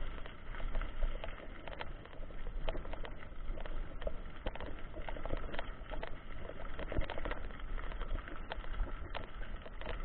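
Mountain bike rolling over a rough trail: irregular rattling clicks and knocks over a steady low rumble.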